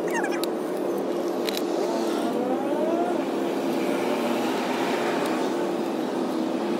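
Street traffic: a vehicle engine running with a steady hum, its note rising briefly about two to three seconds in, with a few sharp clicks near the start.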